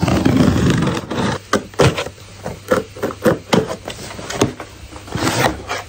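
A cardboard parcel box being opened: a dense scraping noise for about the first second as scissors cut along the packing tape, then a string of sharp taps and scrapes as fingernails and hands work at the tape on the cardboard.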